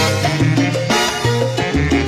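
Salsa music played loud through a large PA sound system: an instrumental stretch without vocals, the bass line stepping from note to note under the rest of the band.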